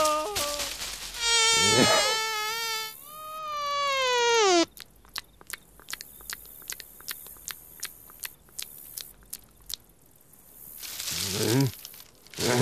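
Cartoon mosquito's buzzing whine, which slides down in pitch and cuts off sharply about four and a half seconds in. A run of light, irregular clicks follows, and a low voice-like growl swells near the end.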